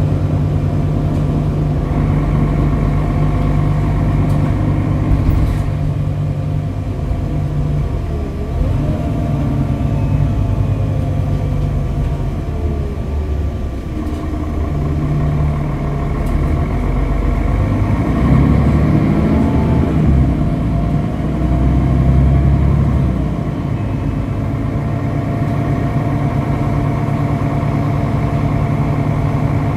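Mercedes-Benz Citaro G articulated bus heard from inside the passenger cabin while riding: the diesel engine and drivetrain run steadily. The note shifts a little before the middle, and the bus grows louder with changing pitch for several seconds about two-thirds of the way through, then settles back to a steady run.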